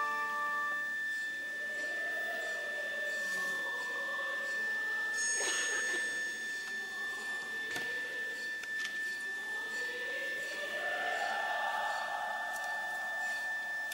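A steady high-pitched tone holds unbroken under a very quiet stretch of a live opera performance. Faint soft orchestral sound swells and fades around it, with a brief noise about five seconds in.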